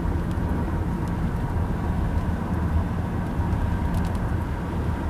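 Car driving at speed, heard from inside the cabin: a steady low road-and-engine rumble.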